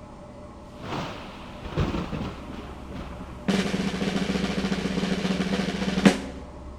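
Drum roll sound effect: a few scattered hits, then a sudden dense roll about halfway through that ends in a single loud crash and fades.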